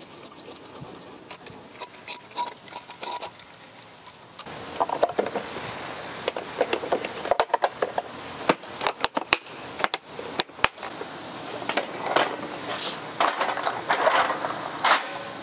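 A scissor jack being cranked down with faint clicks, then from about four seconds in a run of sharp knocks, clacks and rattles of tools and plastic gear being handled and packed away, among them a folding plastic workbench.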